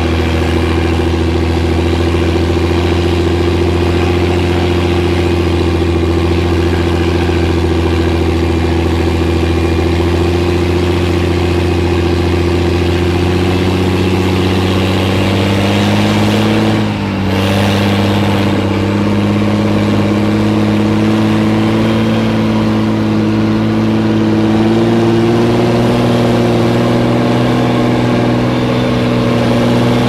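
M113 B armoured personnel carrier's engine running steadily under load. Its pitch rises slightly from about halfway through, with a brief dip about 17 seconds in.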